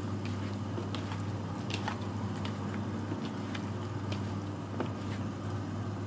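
Raw chicken wings being mixed by hand in a plastic bowl: wet squishing and slapping of the meat, with scattered short clicks, over a steady low hum.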